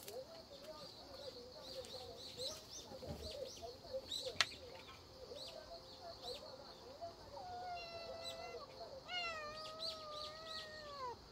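Tabby kitten meowing in a few long, drawn-out cries from about seven seconds in, the last one sliding down in pitch at its end, while it is held by the scruff for a vaccine injection. A single sharp click about four seconds in.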